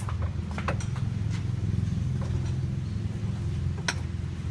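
Car engine idling steadily with a fast even pulse, with a few sharp metallic clicks about a second in and near the end.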